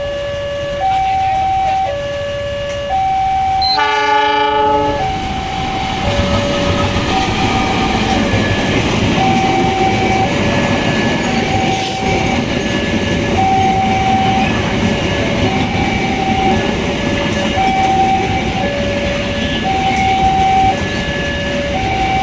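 Level crossing warning alarm sounding two alternating tones, each held about a second, while a train blows its horn briefly about four seconds in and then runs past with a continuous rumble and clatter of wheels on rails.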